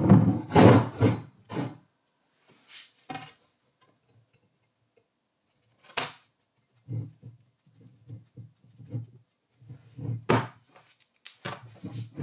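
Solid brass bar rolled and handled on a wooden workbench, rubbing and knocking on the wood at first. Then a black marker rubs on the brass in short strokes, with a few sharp clicks and knocks between.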